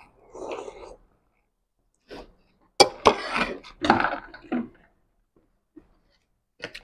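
Noodles slurped at the start, then a hand rummaging in a jar of crispy fried wonton skins, crackling and clattering for about two seconds.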